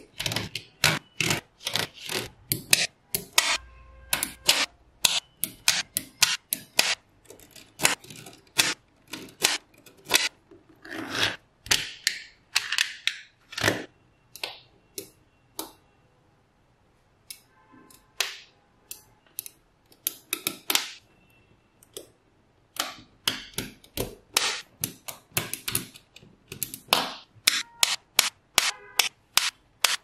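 Small neodymium magnet balls clicking and snapping against each other as they are pressed and set into a layered slab, in quick irregular clicks with a lull of a few seconds about halfway through.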